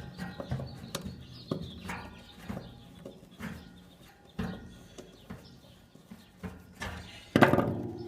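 Scattered clicks and knocks of hand work with a Phillips screwdriver on a window air conditioner's metal shell and mounting platform while its screws are taken out, with a louder clatter about seven seconds in.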